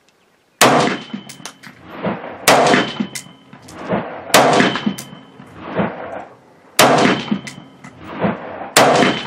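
AR-15 with a Faxon 10.5-inch 5.56 mm pencil barrel firing five aimed single shots about two seconds apart, each sharp crack followed by a short echo.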